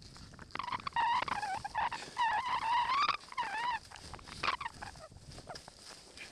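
A person's high-pitched, wavering whoop lasting about three seconds, then a shorter cry, over the hiss of skis running through powder snow.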